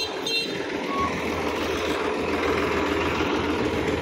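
Tractor engine running steadily, its low hum growing stronger about a second in. Two short high beeps sound right at the start.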